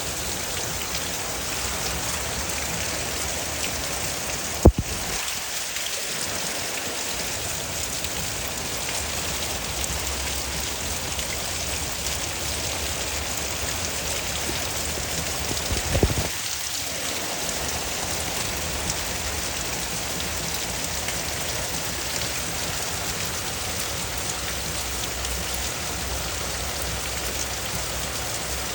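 Steady rain falling, an even hiss, broken by a sharp knock about five seconds in and a few smaller knocks around sixteen seconds.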